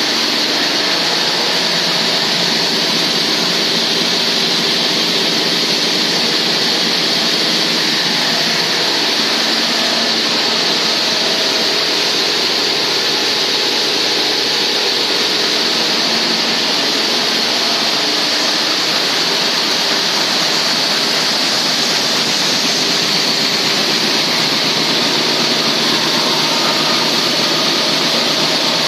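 Italian Tecnova single-screw plastic recycling granulating line running: a loud, steady machine noise with a strong hiss and a few faint steady tones.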